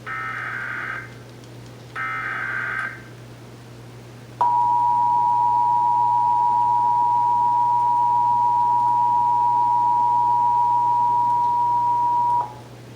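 Emergency Alert System test signal: two short bursts of SAME header data tones, about a second each and a second apart, then the EAS attention signal, two steady tones (853 and 960 Hz) sounded together. The attention tone comes in about four seconds in, holds for about eight seconds and cuts off sharply.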